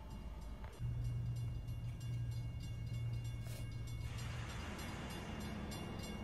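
Steam train sounds: a steady low rumble that starts about a second in, then a hiss of steam from about four seconds in.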